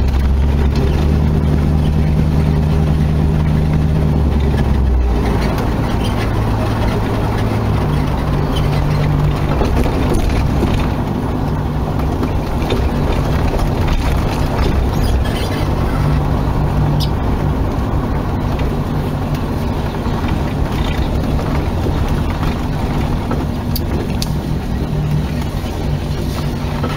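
Dodge Charger 'General Lee' engine running steadily while the car drives along a gravel road, with road and wind noise underneath. About five seconds in the engine note drops to a lower, steady pitch.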